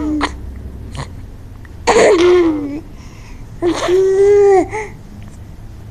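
A baby making loud, drawn-out vocal noises, twice: one about two seconds in and a longer one near four seconds, each a held tone that falls away at the end.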